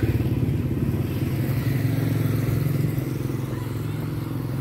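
Motorbike engine running close by, loudest at the start and slowly fading as it moves away.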